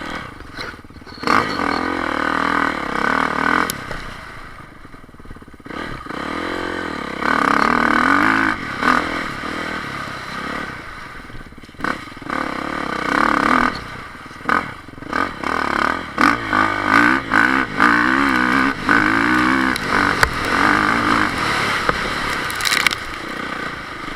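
Enduro motorcycle engines revving and accelerating over rough ground, the pitch rising and falling again and again through repeated loud spells, with scattered clattering and scraping.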